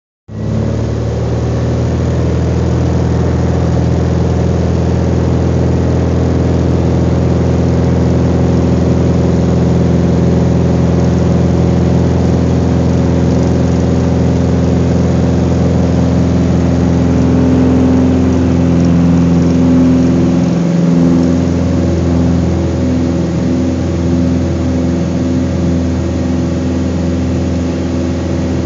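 Beechcraft Debonair's single piston engine and propeller running steadily at takeoff power, heard from inside the cabin through the takeoff roll and lift-off. The drone shifts slightly about two-thirds of the way through.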